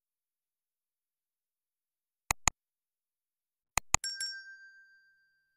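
Sound effects for a subscribe button and notification bell: a pair of quick mouse clicks, then a second pair about a second and a half later, followed by a small bell chime that rings and fades over about a second.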